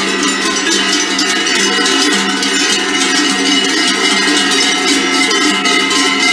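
Many large cowbells on a herd of walking cows, clanging together in a dense, continuous jangle of overlapping pitches.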